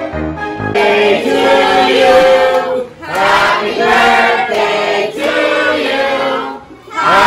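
Background music that stops about a second in, then a crowd of many voices singing together in chorus, in long held phrases with a short break near the end.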